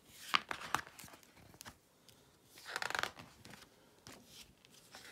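Paper rustling with a few light clicks from a picture book being handled and its pages turned, loudest about a third of a second in and again around three seconds in.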